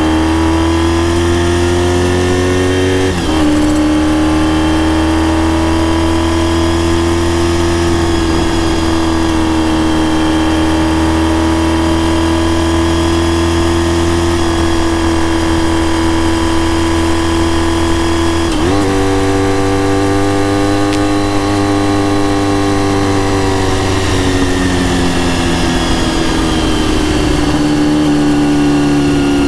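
Honda RVF400 (NC35) 360-degree-crank V4 engine with gear-driven cams, breathing through a TSR slip-on silencer, running under way at steady mid revs. Its note steps abruptly twice, about 3 seconds in and a little past halfway, and falls slowly near the end.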